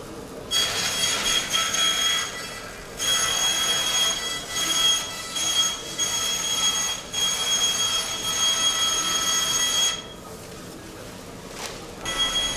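A high-pitched mechanical whine over a hiss, starting about half a second in and breaking off briefly around two seconds. It runs on until about ten seconds in, stops, and starts again near the end.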